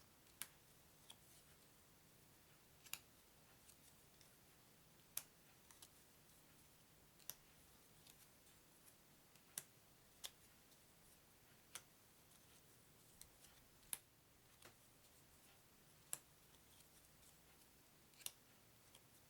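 Stiff game cards being set down one at a time, each a short, sharp click, about ten of them, roughly one every two seconds, over near-silent room tone.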